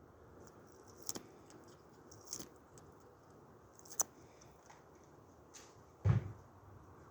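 Bird of prey feeding on raw meat: a few sharp clicks and snaps of beak tearing at flesh and bone. About six seconds in comes a heavier low thump, the loudest sound.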